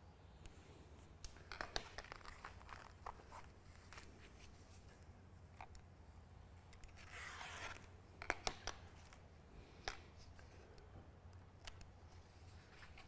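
Faint rustling, scraping and scattered light clicks of Sunbrella marine canvas being handled and cut, over a low steady hum.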